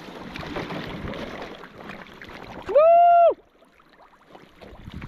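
Water sloshing and splashing around a snowmobile that has broken through the ice into open water. About three seconds in comes a short, loud, held yell, the loudest sound.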